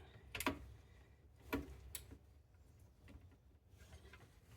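Three sharp metallic clicks, about half a second, a second and a half and two seconds in, from a torque wrench and socket being worked on the strut's mount nuts.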